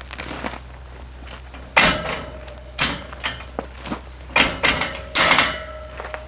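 Metal ATV loading ramp clanking and knocking as it is handled and set into place on a truck, a string of separate clanks with a short metallic ring after the heavier ones; the loudest comes about two seconds in.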